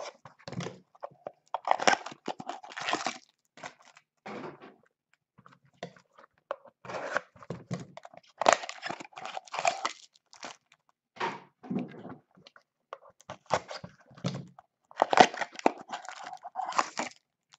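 Foil trading-card pack wrapper being torn open and crinkled by hands in nitrile gloves, in irregular bursts of tearing and rustling.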